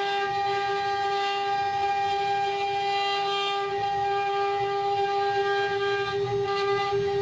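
CNC engraving machine spindle running at speed, a steady high whine that holds one pitch throughout.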